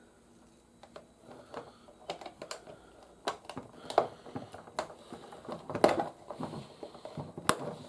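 Hard plastic toy parts clicking and tapping against each other in an irregular run as pieces are handled and fitted together, starting about a second in.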